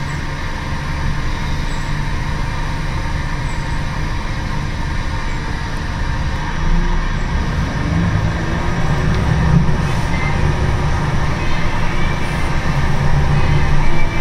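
Cabin sound of a Scania-chassis Wright Solar single-deck bus on the move: the diesel engine's low drone with road and body noise, growing louder about halfway through.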